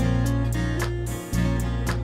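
Instrumental background music with a steady bass line and notes changing about every half second.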